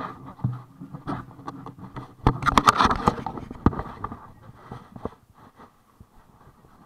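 Scratching and tapping on the microphone of a worn action camera: irregular clicks and rubbing, busiest about two to three seconds in, then dying away near the end.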